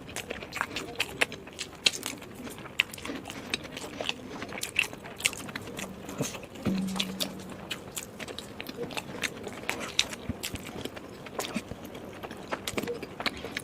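A person chewing momos (dumplings) close to the microphone: many irregular wet smacks and clicks of the mouth and lips, with a short low hum about seven seconds in.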